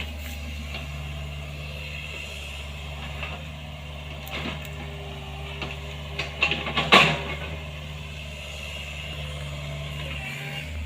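Hydraulic excavator's diesel engine running steadily, with several sharp metallic knocks and clanks from the machine working. The loudest is a cluster about six to seven seconds in.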